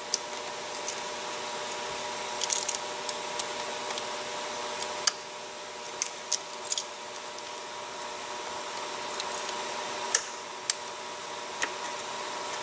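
Scattered metal clicks and clinks of locking pliers (vise grip) gripping and working a hose clamp on an engine hose, over a steady background hum.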